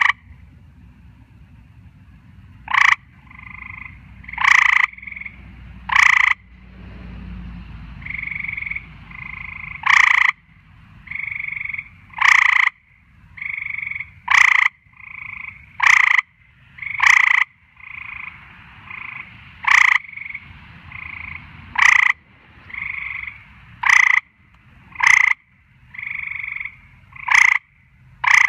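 Tree frogs calling: short, loud calls come every one to two seconds, with softer calls from other frogs in the gaps between them.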